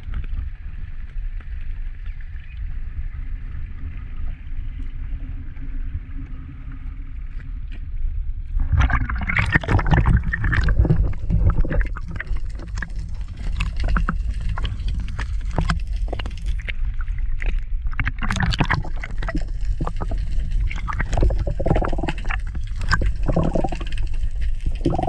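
Water gurgling and sloshing over a steady low rumble, turning into louder, irregular splashing with sharp knocks from about nine seconds in.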